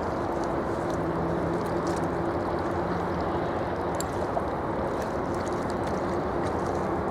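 Jet airliner engines running at a distance, a steady low rumble with a faint steady hum in it.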